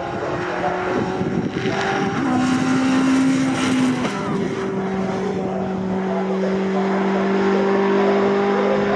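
Racing pickup truck engines running at high revs as the trucks go by on track, their notes held steady; the main note drops to a lower pitch about four seconds in.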